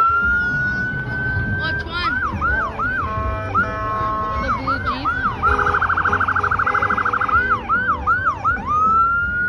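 An emergency vehicle's electronic siren cycling through its patterns: a wail that rises and holds high, then a run of short whooping chirps, a fast warbling yelp around the middle, more whoops, and a rising wail again near the end.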